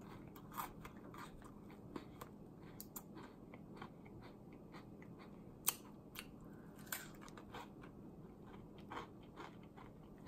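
A person chewing a crisp, lightly sweet biscuit with the mouth mostly closed: faint scattered crunches with a few sharper cracks, the loudest about five and a half seconds in.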